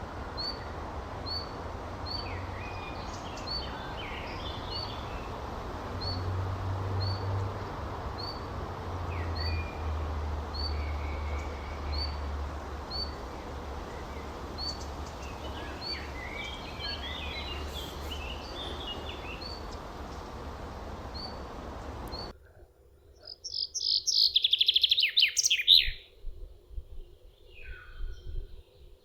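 Wild birds calling over steady outdoor background noise: one bird repeats a short, high chirp about once a second while others call irregularly. About 22 seconds in, the recording cuts to a quieter one in which a bird sings a loud, fast trill for about three seconds, followed by a few fainter calls.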